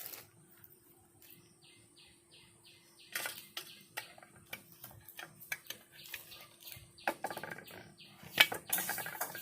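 Clicks and knocks of a pressure cooker's handle and metal parts being handled and fitted, getting louder near the end. A bird chirps about five times in quick succession around two seconds in.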